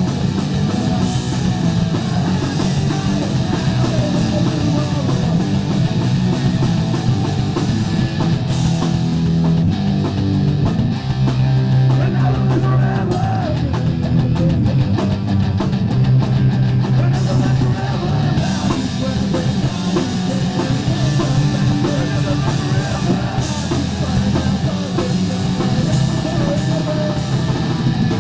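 Live rock band playing a song: electric guitars and a drum kit, loud and continuous.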